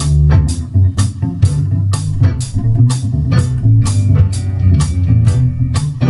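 Live band playing a blues-flavoured tune: upright bass and drum kit keep a steady beat of about two strokes a second under a guitar melody.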